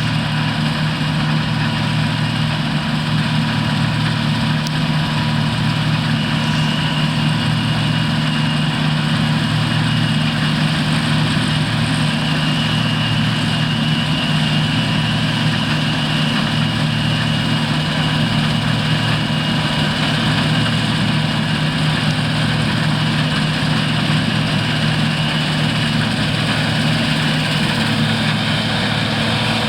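Large diesel farm machinery engine running steadily at a constant speed, with a faint steady high whine over it.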